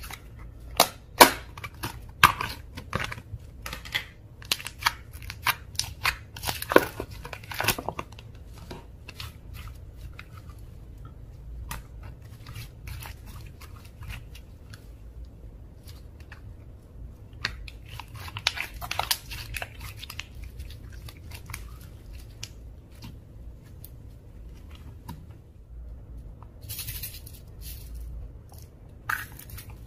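Hands kneading and stretching slime, giving sticky pops and crackles in clusters: a busy run in the first eight seconds, another about eighteen to twenty seconds in, and a few near the end, with quieter handling between.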